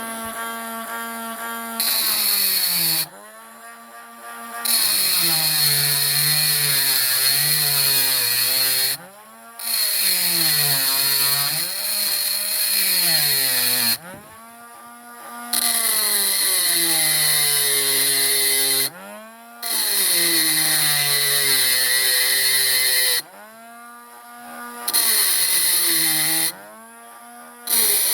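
Small handheld electric grinding tool grinding down metal on a die-cast model, switched on in repeated bursts of a few seconds with short pauses between. Its whine drops in pitch as it bites into the metal and rises again as it is eased off.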